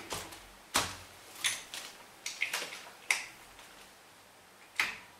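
Several sharp metallic clicks and knocks, spaced about a second apart, as a socket and torque wrench are worked onto the cylinder head bolts of a scooter's 125 cc four-stroke engine.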